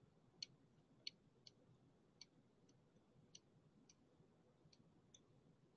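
Near silence broken by several faint, sharp clicks at uneven intervals, the clicks of a computer being used to page through presentation slides.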